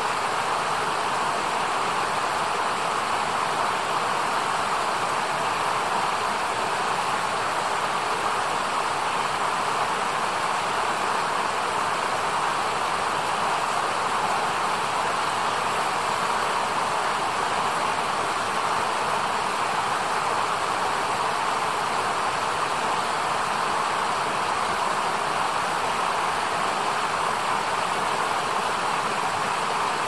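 Fast, shallow mountain river running over rocks: a steady, unbroken rush of water.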